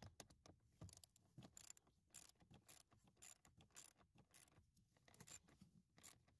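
Socket ratchet clicking faintly in short runs as it tightens the blower motor's mounting screws into the plastic blower housing.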